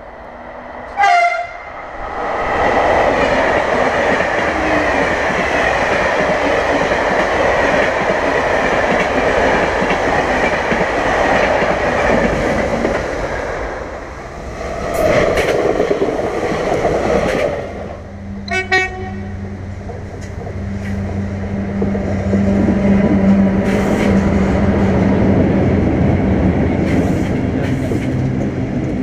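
Trains passing close by on the track, with wheel and rail noise, and brief horn toots at about 1 s and 19 s. From about 18 s, the steady low drone of diesel locomotives takes over as they pull alongside.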